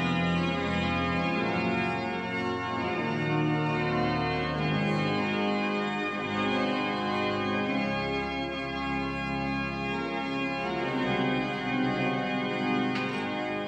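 Church organ playing slow, held chords that change every second or two.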